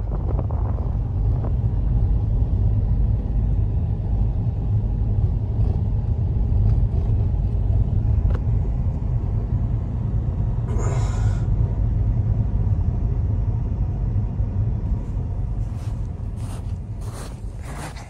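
Steady low rumble of a car driving on a snow-covered road, with a brief rustle about eleven seconds in. Near the end the rumble fades and footsteps crunch through snow about twice a second.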